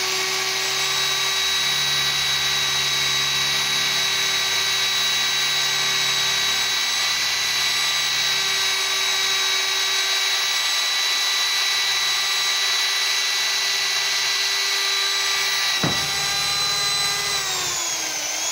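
Corded electric drill running steadily as it bores a hole into a small octagonal wooden base, a steady whine throughout. Near the end there is a single knock, and the motor's pitch briefly sags and then picks back up.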